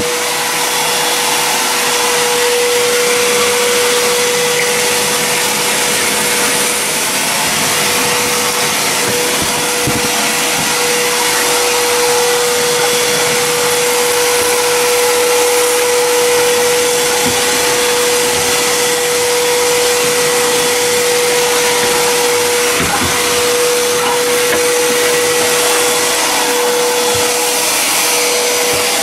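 Wet/dry shop vacuum running steadily, a loud even roar with a constant whine, its hose nozzle sucking dead bugs up off a tiled floor. A few faint knocks come through now and then.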